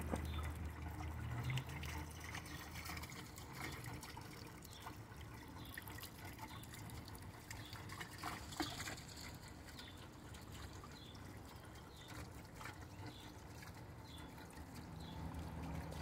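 Garden fountain water splashing and trickling steadily into its basin, faint.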